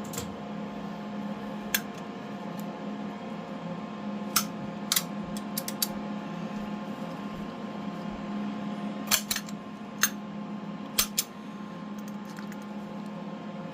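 Small metal parts and hand tools clicking and clinking as they are handled, about ten sharp clicks, some in quick pairs, over a steady mechanical hum.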